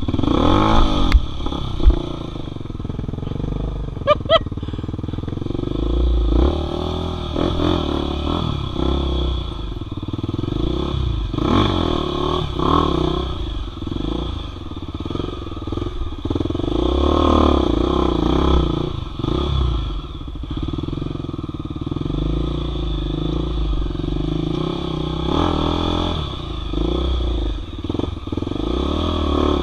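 Off-road motorcycle engine running while being ridden over rough ground, its revs rising and falling again and again, with a few sharp knocks about two and four seconds in.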